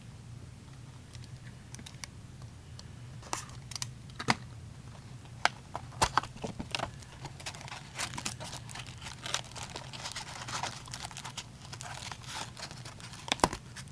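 Plastic shrink wrap crinkling and tearing as a factory-sealed box of hockey card packs is opened, with many scattered clicks and taps of cardboard and foil packs being handled.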